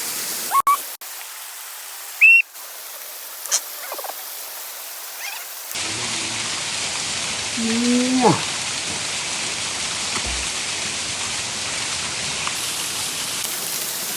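River water rushing in a steady hiss, with a few short high-pitched cries or calls over it; the sound cuts abruptly a few times.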